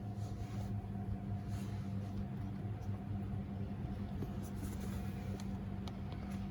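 Steady low hum with a few faint taps and scrapes from parts being handled in an engine bay.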